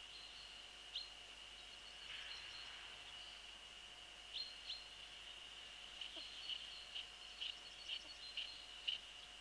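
Faint short, high bird calls, scattered at first and then coming about twice a second in the second half, over a steady high-pitched whine.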